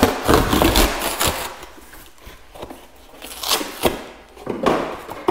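Corrugated cardboard box being torn apart by hand. A long ripping tear comes in the first second or so, then several shorter rips and rustles as pieces come away and are handled.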